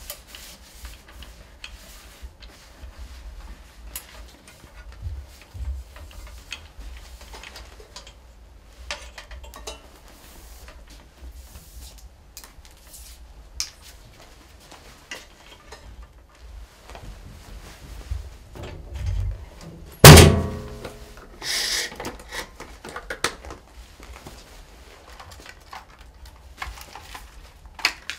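Plastic equipment being wiped and handled: rustling of a cleaning wipe, light clicks and knocks as a monitor cable and probe are moved, and one loud thunk about two-thirds of the way through.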